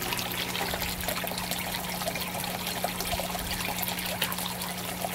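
Water trickling and splashing into an aquaponics swirl filter barrel, with a steady low hum underneath.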